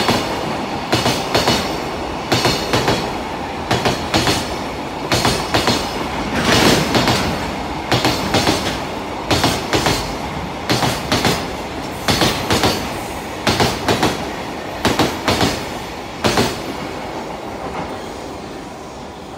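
Container freight wagons passing at speed, their wheels clattering over rail joints in evenly spaced groups of sharp clicks above a steady rolling rumble. The clicks stop after about 16 seconds as the last wagon goes by, and the rumble fades away.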